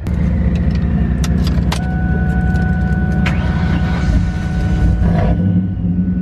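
Car engine idling steadily, heard from inside the cabin. There are a few sharp clicks early on, and a thin steady high tone starts about two seconds in.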